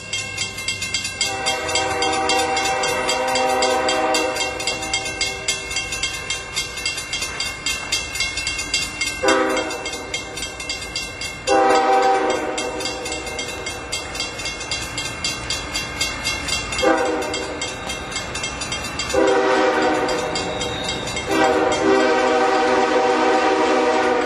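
Diesel freight locomotive air horn sounding a series of blasts, mostly long, with one short one a little before the middle, over the low rumble of the train.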